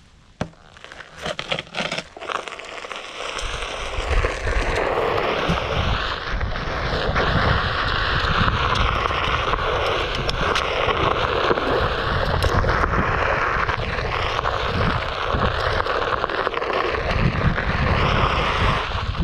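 Onewheel Pint electric board rolling along a dirt trail. After a couple of quiet seconds with a few ticks, the rolling noise and wind on the microphone build to a steady loud rush with a low rumble, wavering up and down as the speed changes.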